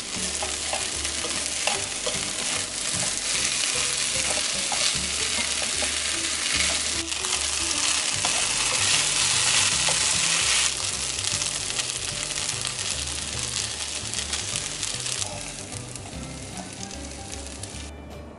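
Shrimp and bean-sprout fried rice sizzling in a frying pan as it is stir-fried with a wooden spatula. The sizzle is loudest about halfway through, then fades in steps toward the end.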